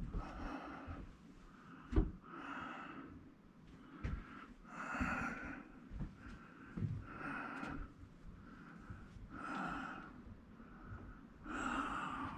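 A person breathing hard close to the microphone, a noisy breath about every second or so, with a sharp click about two seconds in and a few low thumps.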